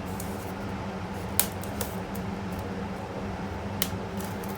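A cardboard box and its packaging being opened by hand: a few light ticks and two sharp clicks about two and a half seconds apart, over a steady low hum.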